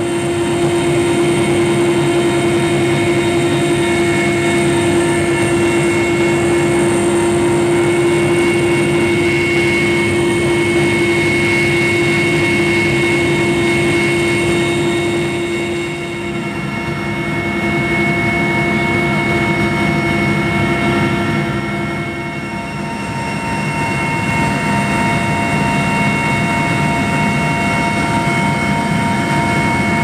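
Mi-8 helicopter's turbine engines and rotor heard from inside the cabin: a loud, steady drone with several high whining tones held over it, dipping slightly in level a couple of times.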